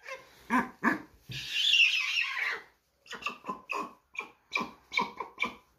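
White stork chick begging: a string of short yelping calls, about two a second, broken a little over a second in by a longer, louder hoarse rasp.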